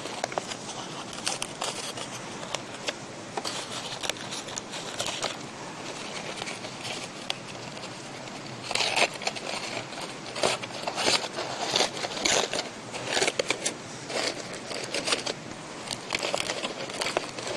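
Aluminium foil crinkling as hands unfold a double-wrapped foil packet, in irregular rustling crackles that become louder and busier about halfway through.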